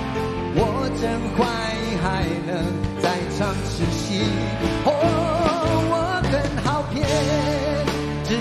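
Live Mandopop rock ballad: a male voice singing over a full band of electric and acoustic guitars, keyboards, bass and drums, with a long wavering held note about five seconds in.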